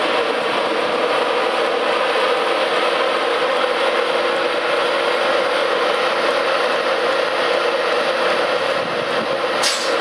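Class 91 electric locomotive passing, a steady electrical hum with wheel-on-rail running noise. A brief sharp click or squeal near the end.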